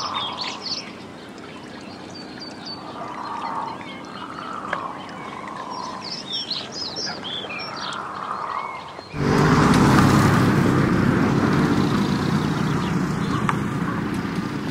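Birds chirping and calling over a lake, with a few longer, lower calls among the quick high chirps. About nine seconds in, this gives way to a much louder, steady noise with a low hum as a herd of dairy cows moves along a village road.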